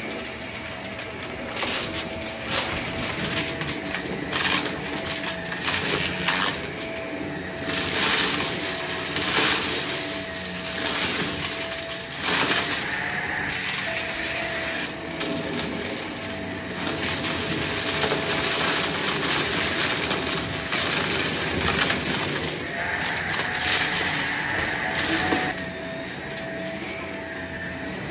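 Stick vacuum running with a steady motor whine while its floor head rattles and crackles over small hard debris on a shag rug. The vacuum is running clogged, pushing much of the debris around instead of picking it up. The whine shifts pitch briefly near the middle and again near the end.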